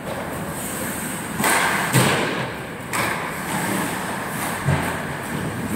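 Ice hockey play on the rink: four sudden knocks and thuds over a steady scrape of skates on the ice, the loudest about two seconds in.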